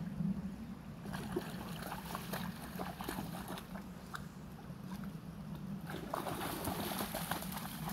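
A dog wading through shallow stream water, its legs sloshing and splashing with each step, in many short splashes from about a second in.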